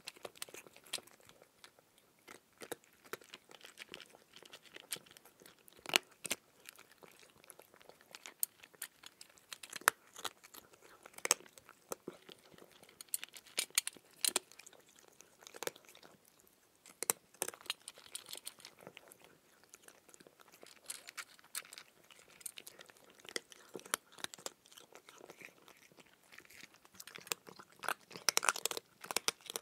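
A person chewing raw cucumber: irregular crisp crunches, with a denser run of louder crunches near the end.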